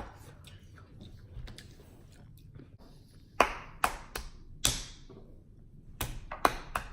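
Utensils clicking and clinking against bowls: about five sharp taps in the second half, a couple with a short ring after them.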